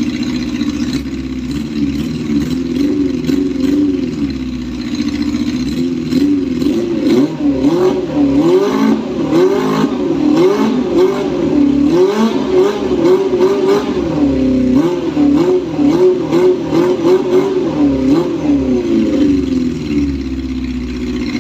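Honda CB400 Super Four four-cylinder engine with an SC aftermarket exhaust, running steadily at first, then revved in a long series of quick throttle blips, each rising and falling in pitch, from about a third of the way in until near the end, when it settles back to a steady idle.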